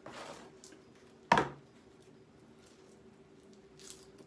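Eating sounds of a man chewing pizza crust close to the microphone, with soft mouth noises. Just over a second in comes a single loud, short vocal sound that falls in pitch, and there are faint lip smacks near the end as he licks his fingers.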